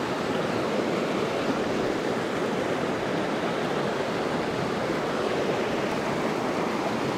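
Small mountain stream running steadily over rocks in shallow riffles.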